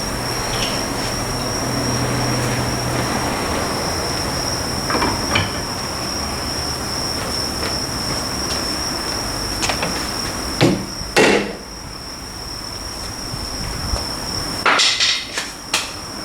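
Metal tools knocking and clanking on a Suzuki Carry's rear differential during disassembly: two sharp knocks about eleven seconds in and a quick cluster near the end, over a steady high-pitched whine.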